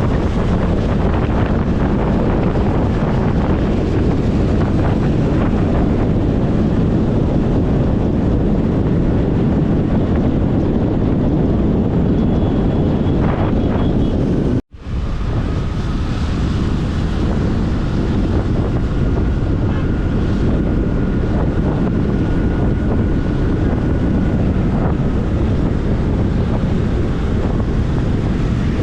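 Wind buffeting an action camera's microphone on a moving scooter or motorbike: a loud, steady rumble. About halfway through, the sound cuts out for a split second and then comes back.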